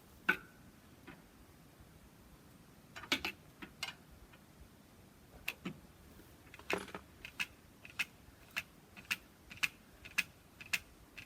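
Manual lever grease gun being pumped into an excavator's track-adjuster grease fitting, which tightens the track: a few scattered clicks at first, then a steady click about twice a second from about seven seconds in.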